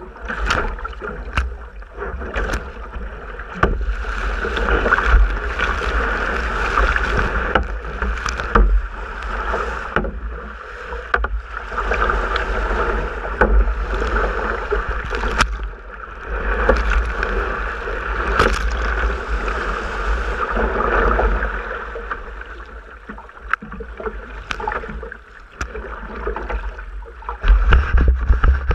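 Water rushing and splashing along a sea kayak's hull as it rides small waves, with paddle splashes and spray hitting the deck-mounted camera. The rush swells and fades over several seconds at a time, with sharp splashes throughout and a low wind rumble on the microphone that grows louder near the end.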